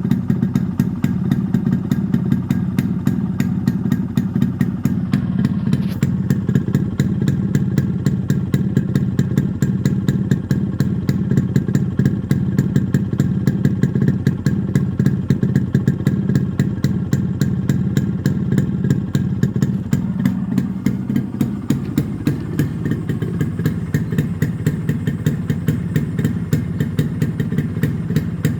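Yamaha RX100's two-stroke single-cylinder engine running steadily, a rapid even train of exhaust pulses through an RXK muffler and 1987 six-hole silencer, with a G2 cylinder fitted.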